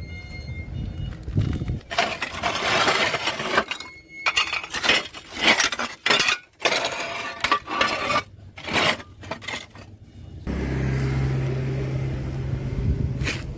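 A quickly cut run of metal workshop sounds: scraping and sharp metallic clinks and knocks. From about ten seconds in, a steady hum takes over.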